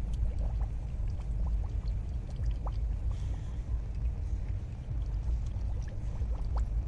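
Engine coolant being poured from a gallon jug into a car's cooling system, over a steady low rumble with a few small clicks.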